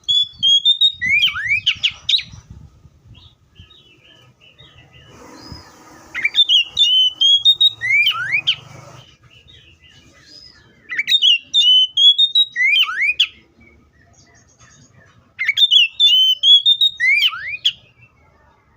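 Oriental magpie-robin singing: four repeated song phrases a few seconds apart. Each is a high, slightly rising held whistle broken by quick downward-swooping notes.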